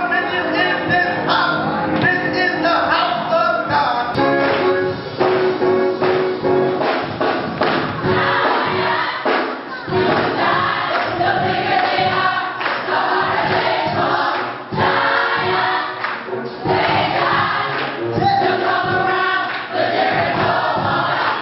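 Gospel choir singing in a church.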